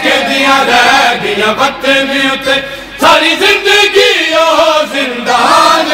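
A group of men chanting a Punjabi noha, a Shia lament, together in a loud, sustained unison.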